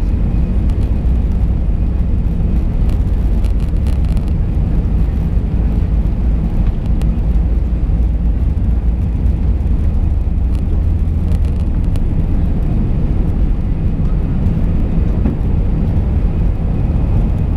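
Cabin noise inside an Airbus A319 during the takeoff roll and liftoff: a steady deep rumble of the jet engines at takeoff thrust and the wheels on the runway, with a few light clicks.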